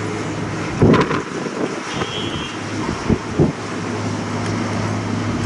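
Wind blowing across the microphone over a steady low hum, with a few short knocks about a second in and again around three seconds in.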